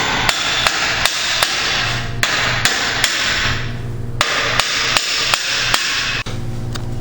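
Hammer blows on the front brake caliper of a 1999 Dodge Ram 1500 to knock it loose, about two to three sharp strikes a second in short runs with brief pauses between. The hammering stops near the end.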